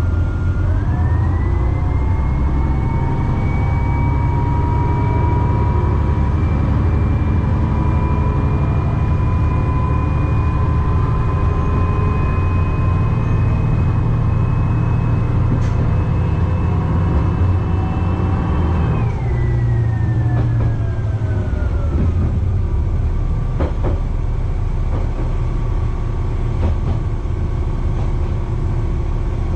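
Kishu Railway diesel railcar's engine rumbling as the car pulls along under power: its pitch rises about a second in, climbs slowly, then falls away about two-thirds of the way through as the power is shut off and the car coasts. A few sharp clicks near the end.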